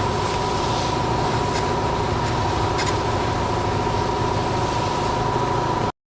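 An engine running steadily with a constant whine, which cuts off abruptly near the end.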